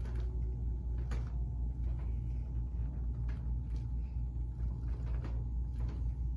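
Steady low hum with a few soft knocks and clicks spread through it, from hands-on handling during a chiropractic exam.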